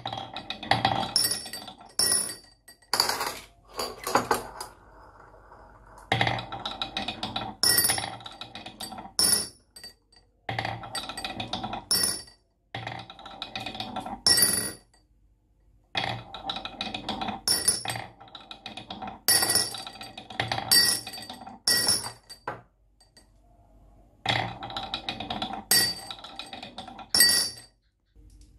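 Glass marbles rolling and clinking down a toy marble run, in clattering runs of a second or two with bright ringing clinks. The runs stop abruptly several times.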